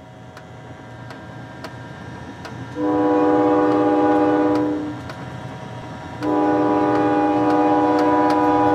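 Multi-chime steam locomotive whistle on the Walt Disney World Railroad, blowing two long blasts about a second apart, the second a little longer than the first.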